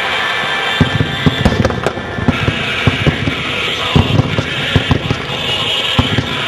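Aerial fireworks going off: a quick irregular string of deep booms and bangs, a dozen or more, over a steady hiss.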